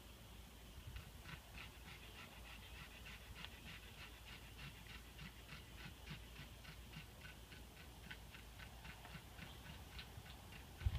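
A dog panting fast, about four breaths a second: the dog is hot.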